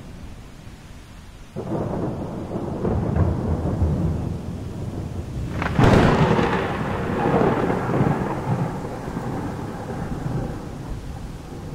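Thunder. A low rumble starts suddenly about one and a half seconds in, then a sharp crack near the middle rolls into a long rumble that slowly dies away.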